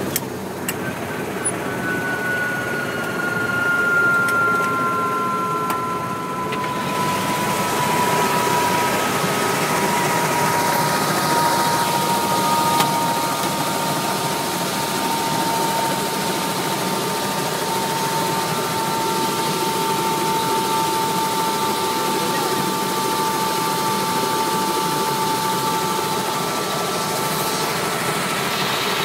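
Helicopter turbine engine and rotor running steadily, with a high whine that slowly falls in pitch; the rushing noise turns brighter about seven seconds in.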